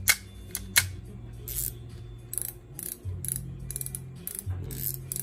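Shimano Biomaster 2000 spinning reel being handled and worked: two sharp clicks near the start, then a run of short, irregular ratcheting clicks from its mechanism.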